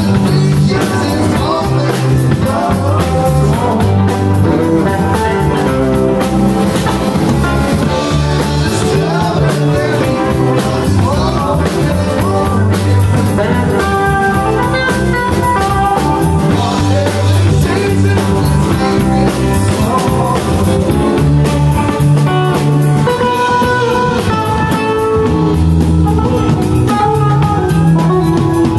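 Live rock band playing, with electric guitars, keyboard and drum kit.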